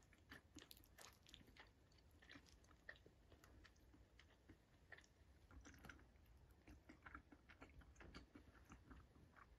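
Faint eating sounds: a person chewing and biting food, heard as scattered small clicks and crackles.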